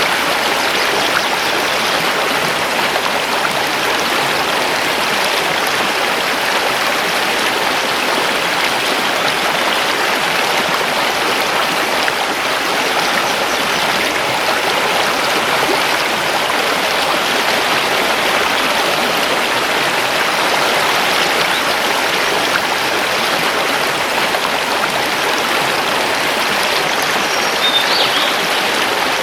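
Mountain river rushing steadily over stones. A bird gives a few short, high chirps near the end.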